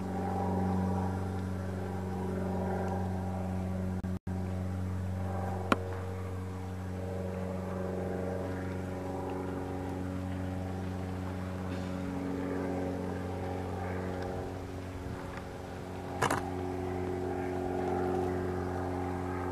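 An engine running steadily at an even speed, with no revving, and a couple of short sharp knocks over it.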